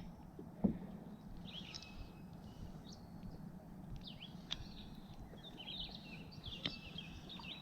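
Small songbirds chirping and twittering in short high calls, with a few faint clicks.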